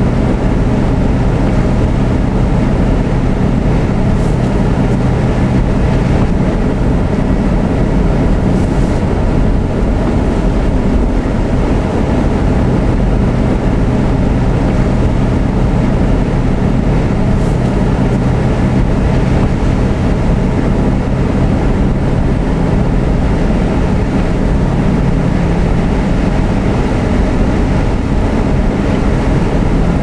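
Steady road and engine noise inside a moving car's cabin, driving on a snow-covered highway, with a low hum under it.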